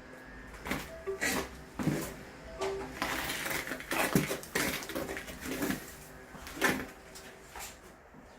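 Metal hand tools clinking and knocking irregularly, some strikes ringing briefly, with a rougher scraping stretch about three seconds in, as digging begins at the spot marked over the buried drain pipe.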